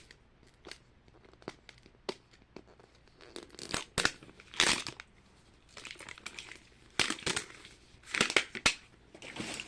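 Plastic wrapping on a Mini Brands capsule crinkling and tearing as it is peeled open. It comes in short bursts with scattered small clicks between them.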